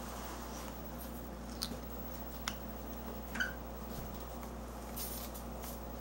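African grey parrot eating mango from a plastic cup, its beak giving a few sharp clicks and taps against the cup, over a low steady hum.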